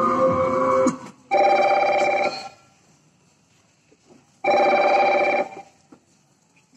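Music stops about a second in; then a telephone rings twice, each ring lasting about a second, with a pause of near silence between them.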